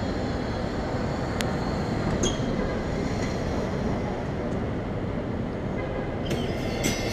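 Steady low rumble of city street traffic, with a single sharp click about a second and a half in and a short burst of rapid clicking near the end.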